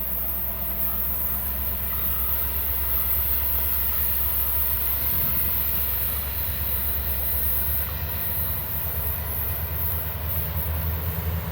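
Diesel locomotives of a CN freight train running with a steady low rumble, with a faint thin steady squeal of wheels on the rail above it.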